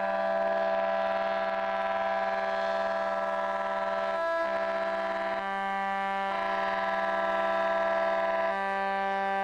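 Ship's horn blowing one long, steady blast, its tone shifting a few times.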